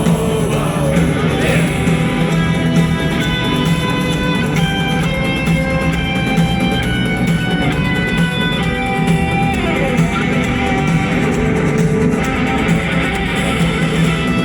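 A rock band playing live with no singing: electric guitars over steady bass and drums.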